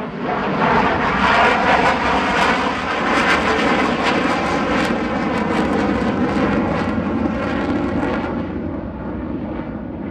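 Boeing F-15QA twin-engine jet fighter passing close by, its engines loud with a crackling edge. The noise swells sharply in the first second, holds, and eases off over the last couple of seconds.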